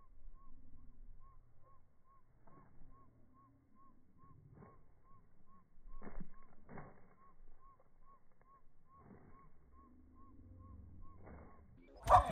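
Faint outdoor ambience: a high chirp repeats about two or three times a second throughout, with a few soft scuffs of footsteps on wood-chip mulch and a single sharp knock just before the end.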